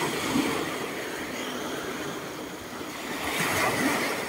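Small sea waves washing over a pebbly shore: a steady rush of water that swells once about three seconds in.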